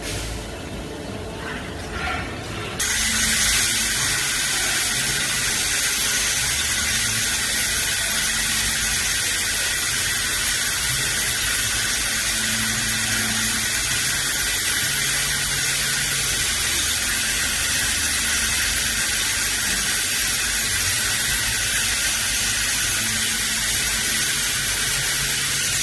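CNC machine running, a steady, high-pitched, hiss-like squeal that starts abruptly about three seconds in and holds unchanged.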